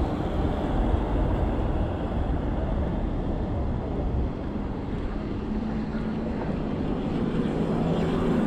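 Wind rushing over the microphone and road noise from a bicycle ride on wet streets. About halfway through, a low steady motor-vehicle hum joins it.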